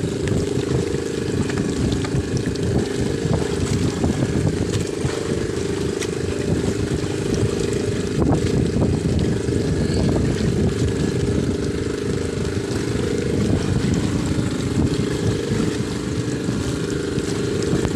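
Steady rumbling wind on the microphone and the sea around a small fishing boat, with no distinct events.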